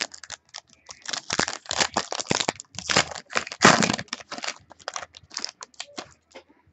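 A trading-card pack wrapper being torn open and crinkled, an irregular run of dense crackles, as the cards inside are handled.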